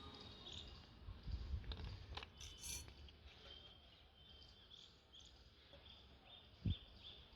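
Faint, evenly repeated high chirps in the background, with a few sharp knocks in the first half and a dull thump near the end.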